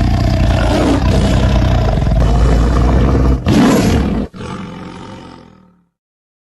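Tiger roar sound effect: a long, low, rasping roar, then a second shorter roar about three and a half seconds in, fading away into dead silence.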